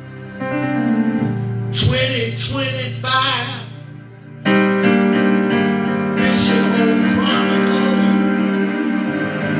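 Electric keyboard playing slow, sustained gospel chords under the sermon, with a louder new chord struck about four and a half seconds in.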